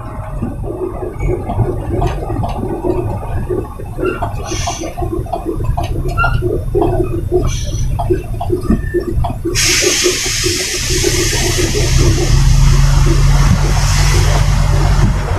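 Trailer truck's diesel engine running, heard inside the cab, with irregular rattling over a low rumble. About ten seconds in a loud steady hiss starts suddenly, and the engine's low rumble then grows stronger.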